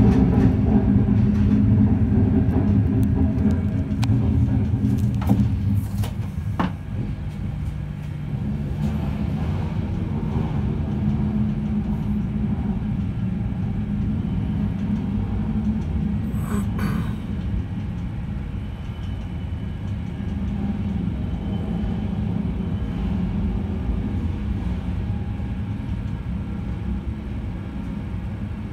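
Low steady rumble of a passenger train rolling slowly along the rails of a train ferry's enclosed deck during shunting. The rumble is louder for the first few seconds, with a few sharp clicks about five seconds in and a short hiss a little past halfway.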